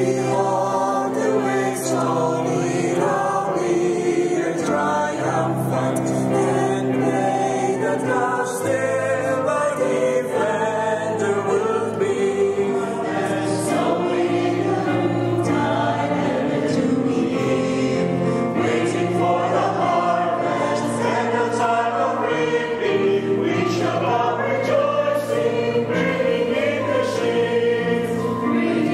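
A choir of men and women singing, accompanied by an electronic keyboard and amplified through microphones and loudspeakers.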